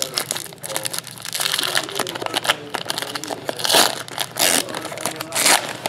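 Foil trading-card pack crinkling and crackling in the hands, with louder crackles about four and five and a half seconds in.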